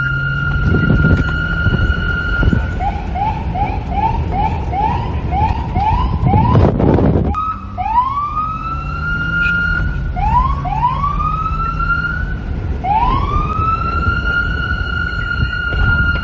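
Police car siren changing pattern: a steady held high tone, then a rapid yelp of short rising chirps about two a second, then a few slower rising whoops that climb and hold the high note. Low rumbling wind noise underneath, with a loud rush of noise about seven seconds in.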